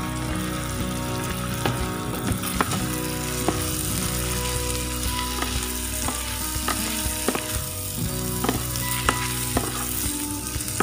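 Mee sua noodles, bean sprouts and vegetables stir-frying in a hot pan: a steady sizzle, with a wooden spatula knocking and scraping against the pan now and then as it tosses the food.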